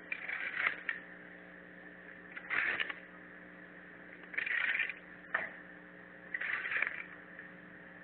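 A hoe scraping soil across paving stones in short strokes, about one every two seconds, with a sharp click between two of the strokes. Heard over a steady low hum through a security camera's microphone.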